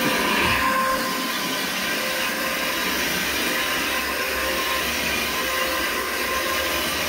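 Zipper electric carpet agitator running steadily as it is pushed over a nylon carpet, scrubbing in the cleaning solution: a constant motor whine with a steady pitch.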